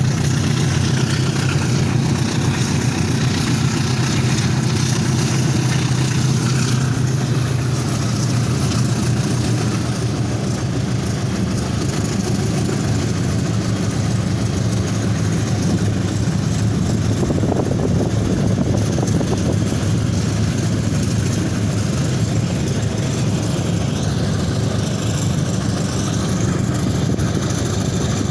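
Pair of GE U13B and U15B diesel-electric locomotives running with a steady low engine drone as they haul a loaded ore train slowly past.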